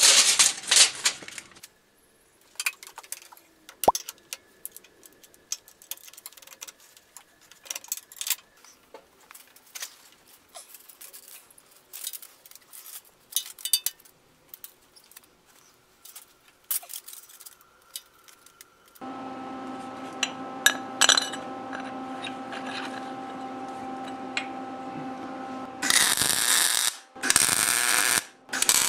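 Clinks and knocks of metal parts being handled and fitted by hand, then a steady hum comes on. Near the end, loud crackling of MIG welding in a few short runs with brief gaps.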